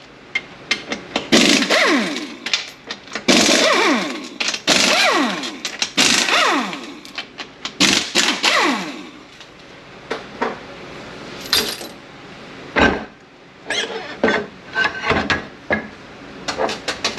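Cordless impact tool run in about six short bursts, its motor pitch falling as each trigger pull ends, as it spins out the 13 mm bolts on an 8L90 transmission. After that come light metallic clicks and knocks of bolts and parts being handled, with one heavy clunk about 13 seconds in.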